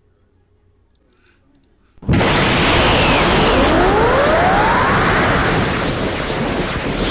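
Super Saiyan Beast power-up aura sound effect: after about two seconds of near silence it bursts in suddenly as a loud, dense rushing noise, with a couple of rising whistling glides a few seconds later.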